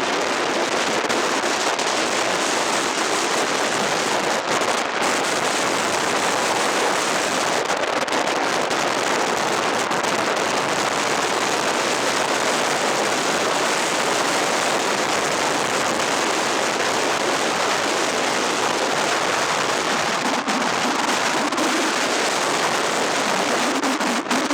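Steady, dense crackling hiss from a moving vehicle, unbroken throughout.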